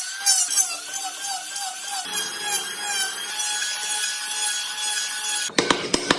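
Small power tool working wood, its motor pitch dipping and recovering about three times a second as it bites, then running steadily. About five and a half seconds in it gives way abruptly to a quick run of sharp tapping clicks.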